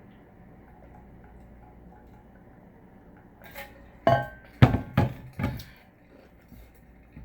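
Tableware clattering: a quick run of about five knocks and clinks over two seconds, starting about halfway through, the loudest near the middle of the run and a few of them ringing briefly.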